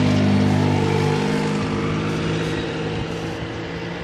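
Diesel train engine running with a steady hum that slowly drops in pitch and fades.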